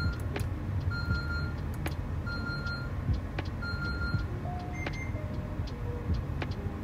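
High electronic beep repeating about every second and a half, like an equipment alarm, over a steady low hum, with a few sharp clicks. A few light melodic notes sound about two-thirds of the way through.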